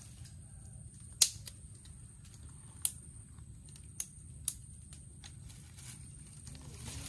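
Open cooking fire crackling: a few sharp, isolated pops over a low steady rumble, the first about a second in the loudest.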